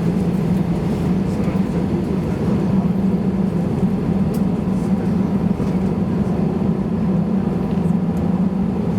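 Steady low drone inside the rear cabin of an Airbus A320-214 airliner with its CFM56 turbofan engines running, holding an even level with a faint high tone over it.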